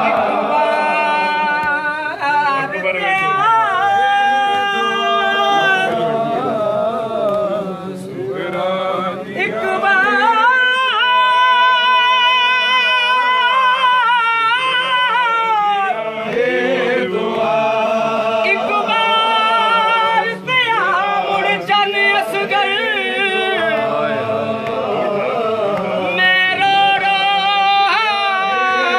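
Sindhi noha, a mourning elegy, sung unaccompanied by voices in long held, wavering melodic lines.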